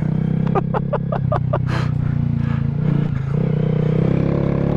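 Honda Grom's single-cylinder four-stroke engine running steadily while riding on dirt, easing off briefly about three seconds in and then picking up again.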